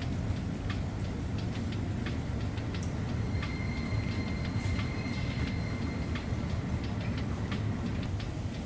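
Steady low rumble of a commercial ship's machinery heard on the bridge, with scattered light clicks. A thin, steady high electronic tone sounds for about three seconds, starting about three seconds in.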